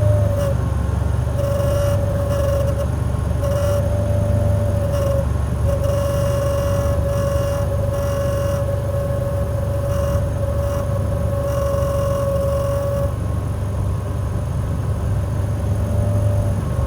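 Air conditioner running with a steady low hum and a high whining tone, the noise the owner is concerned about. The whine breaks off briefly a few times and stops about thirteen seconds in, leaving the hum.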